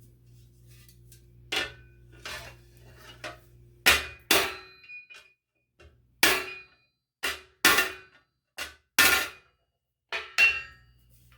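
Hammer blows on a steel armour plate over a T-stake, about a dozen irregular strikes, each with a short metallic ring, knocking a rough, dented edge straight.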